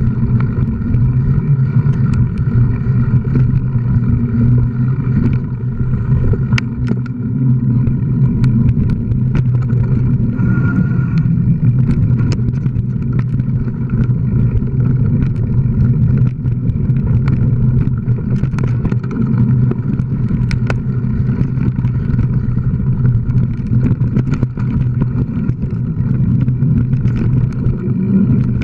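Mountain bike ridden fast along a dirt trail, heard from an on-board action camera: a steady low buzzing hum with frequent sharp rattles and knocks as the bike rolls over bumps.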